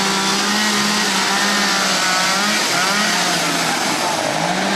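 Two-stroke chainsaws running while carving wood, the engine pitch holding steady and then dipping briefly several times.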